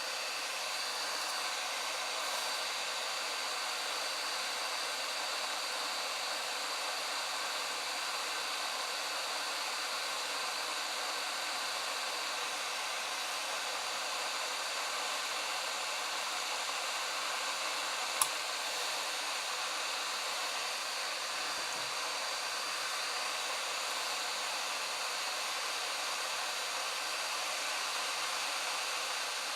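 Hot-air rework station nozzle blowing steadily at 400 degrees, an even hiss with a thin high whine, heating the solder joints of a broken USB connector on a tablet board to melt it free. One sharp click about 18 seconds in.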